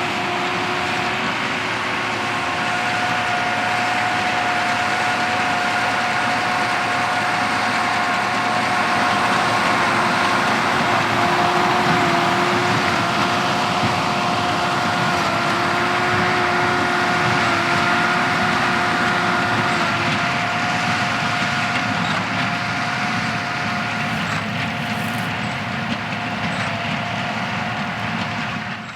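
A John Deere tractor and a Massey Ferguson 2150 large square baler running steadily while baling straw, with a steady whine over the machinery noise.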